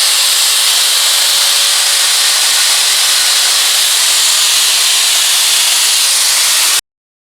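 Eureka Forbes Euroclean X-Force vacuum cleaner running, a steady loud rush of air, which cuts off abruptly to silence near the end.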